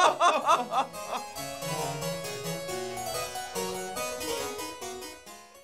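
A man laughing heartily in short bursts for about the first second, then harpsichord music playing a light period-style tune that fades out near the end.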